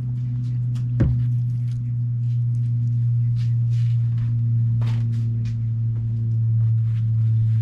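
A steady low hum throughout, with one sharp click about a second in and a few faint clicks later.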